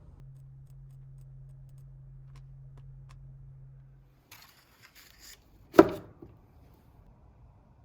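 A low steady hum for about four seconds that stops, then a brief scraping rustle and one sharp knock.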